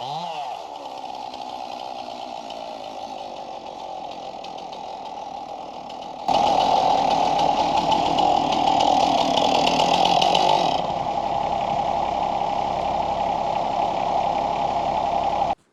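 Chainsaw running while sawing a fallen log. About six seconds in it becomes abruptly louder and hissier for several seconds, then eases a little and cuts off suddenly near the end.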